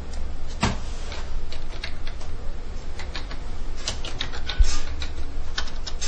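Computer keys clicking irregularly, a few a second, over a low steady hum.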